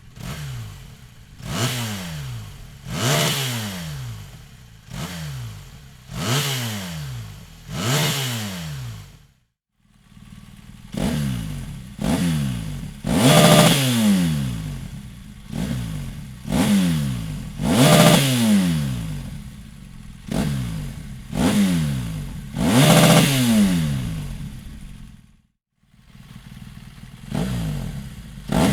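BMW R 1200 GS boxer-twin engine blipped repeatedly through a Dominator aftermarket exhaust silencer. Each rev rises sharply and falls back toward idle, about one every second and a half. The sound cuts out briefly twice, between takes.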